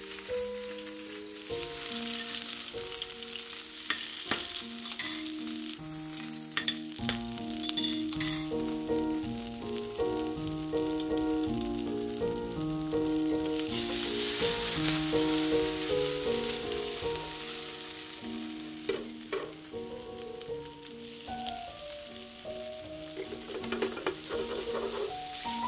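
Food sizzling in a hot frying pan, loudest about halfway through, with a few sharp clicks and knocks, over background music of sustained stepping notes.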